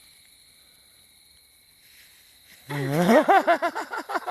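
Insects trill faintly and steadily in the woods. About two and a half seconds in, a person's voice suddenly breaks in with a loud, rapidly repeating non-speech vocal sound.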